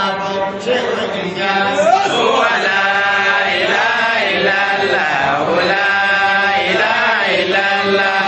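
A man's voice chanting Islamic dhikr (zikr of God's name) into a handheld microphone, in long, drawn-out melodic phrases.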